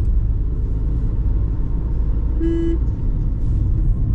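Car running along a road, a steady low rumble of engine and road noise heard from inside the vehicle. About two and a half seconds in, a vehicle horn gives one short toot.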